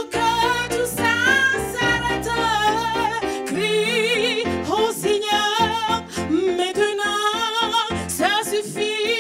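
A woman singing a gospel song: sustained notes and runs with heavy vibrato and no clear words, over keyboard accompaniment.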